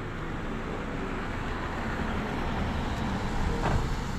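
Motor vehicle noise: a steady road-vehicle rumble that swells slightly near the end, with a faint click about three and a half seconds in.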